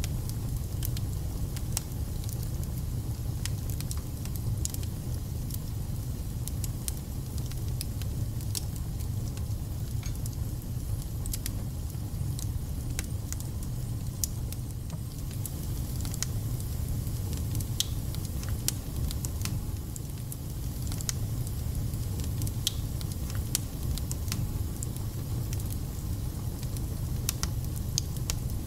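Wood fire burning in a fireplace: a steady low rumble of flames with scattered sharp crackles and pops from the burning logs.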